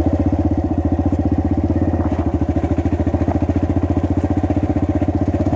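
Motorcycle engine running at a steady speed while riding, a fast, even pulsing beat.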